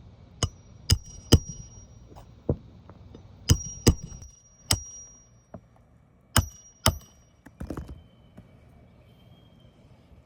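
Hammer blows on metal during a shingle roof repair, about ten sharp strikes in irregular groups, several leaving a short high metallic ring.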